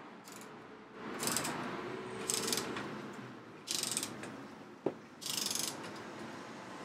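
Socket ratchet with a 7 mm hex bit clicking in four short runs, about a second apart, as it undoes the lower brake caliper guide bolt. There is a single sharp click just before the last run.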